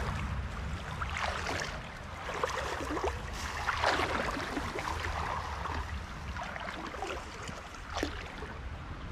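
Wading through a shallow creek: irregular swishing splashes of water around the legs with each step, over a low steady rumble.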